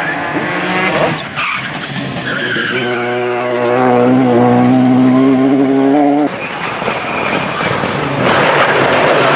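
Rally car engines at high revs: one holds a strong, fairly steady note for about three seconds, then breaks off suddenly, leaving a loud rushing tyre and road noise.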